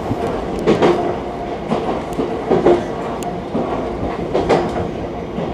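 JR East E131-1000 series electric train running along the track, its wheels clacking over rail joints in paired beats about every two seconds over a steady rumble.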